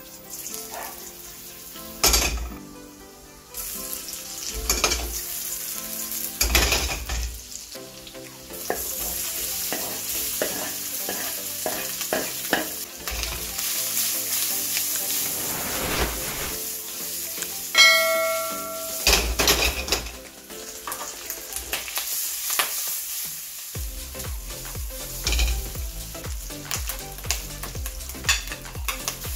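Garlic and chopped meat sizzling in hot oil in a pan, with a spatula scraping and tapping against the pan as the food is stir-fried. About two-thirds of the way through, metal strikes metal once with a short ring.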